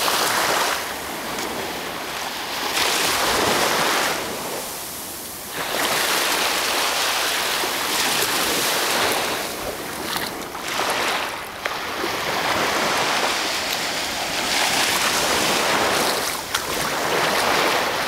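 Small sea waves washing in the shallows: a rushing hiss that swells and fades every few seconds.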